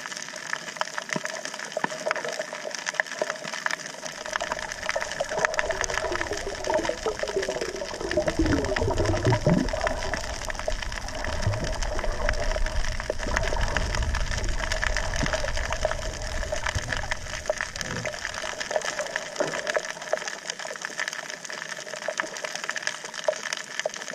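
Underwater sound of a shallow coral reef heard through an action camera's waterproof housing: a dense, steady crackle of small clicks over a faint steady hum. A low rumble of water moving against the housing comes in about four seconds in and fades out near twenty seconds.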